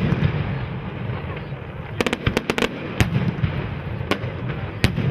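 Fireworks bursting: a rapid run of sharp cracks about two seconds in, then single bangs about a second and nearly three seconds later, over a steady murmur of crowd voices.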